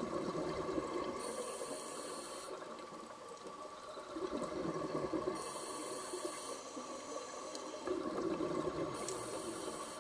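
Scuba diver breathing through a regulator underwater: a hiss on each inhale, then a burst of exhaled bubbles, repeating about every four seconds.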